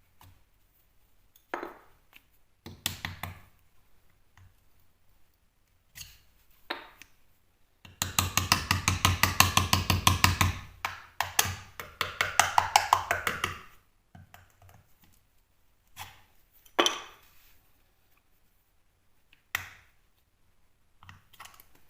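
Temporary fixing screws being backed out of plasterboard with a power driver: a loud rapid rattling in two spells around the middle, amid scattered knocks and clicks of handling tools and fixings.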